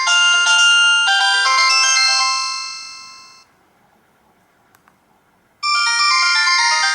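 Samsung SCH-A915 polyphonic ringtones played on a Philips Xenium E168 mobile phone's loudspeaker. A bright, chiming melody fades out about halfway through, two faint clicks sound in the short pause, and the next ringtone starts suddenly near the end.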